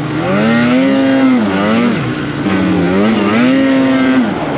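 Snowmobile engine being ridden hard, its pitch climbing, holding and dropping several times as the throttle is worked on and off.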